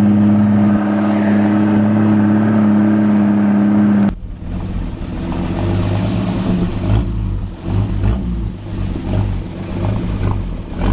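Vehicle engine running with a steady low drone, heard from the open back of a truck carrying passengers and boxes. About four seconds in, the sound cuts abruptly to a rougher, uneven low rumble that rises and falls in loudness.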